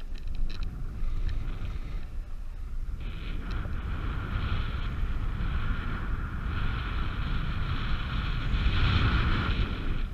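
Wind buffeting the microphone of a paraglider's harness-mounted camera in flight: a constant low rumble with a rushing hiss that comes and goes, strongest near the end.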